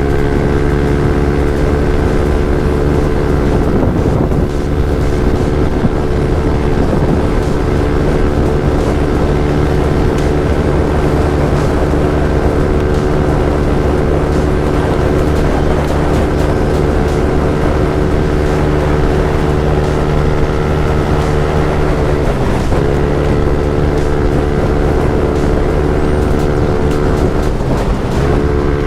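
Yamaha NMAX 155 scooter's single-cylinder engine running through a JVT V3 aftermarket exhaust at a steady cruising speed. The engine note holds steady, then dips briefly and picks back up twice, about 22 seconds in and near the end.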